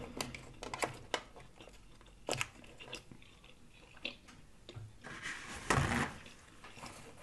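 Close-miked chewing of a mouthful of food with the mouth closed: soft wet smacks and clicks at an irregular pace, with a louder mouth sound just before six seconds in.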